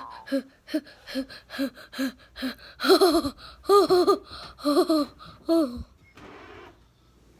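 A person laughing in a run of short, evenly spaced pitched "ha" bursts, getting louder about halfway through, then stopping near the end.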